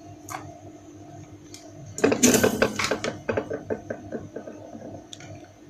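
Small clicks and rattles of wires, a perfboard and a soldering iron being handled on a workbench, with a louder rustling clatter about two seconds in.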